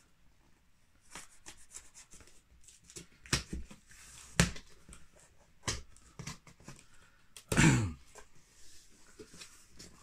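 Cardboard shipping box being opened by hand: scattered rustles, taps and scrapes of the flaps and packing, with one brief, louder creak-like sound about three-quarters of the way through.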